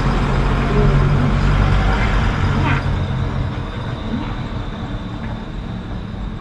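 Low engine rumble from a large road vehicle such as a bus or truck, loudest for the first three or four seconds and then fading away.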